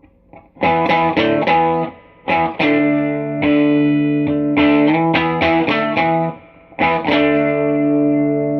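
Telecaster electric guitar played through a Crate VC5212 Vintage Club 50 combo amp on its second channel with the gain at 2 and reverb on: a few short chord stabs, then strummed chords with brief gaps, the last chord left to ring.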